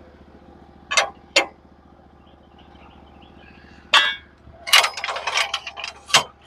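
Steel log dogs and clamps on a Norwood HD36v2 sawmill bed clanking as the log is set and clamped: two sharp clanks about a second in, a louder clank at about four seconds, then a rattling run of clanks and a final sharp strike near the end, over a faint steady engine hum.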